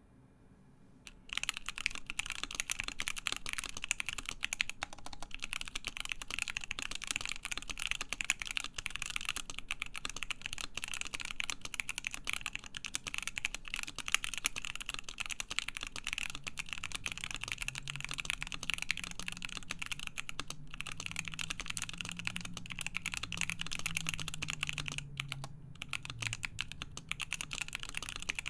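Fast, continuous typing on a Cannon Keys Savage65 mechanical keyboard with stock, unlubed JWK Lilac linear switches on a full FR-4 plate and Hammerworks CRP Desko keycaps: a dense stream of key clacks that starts about a second in, with a couple of brief pauses.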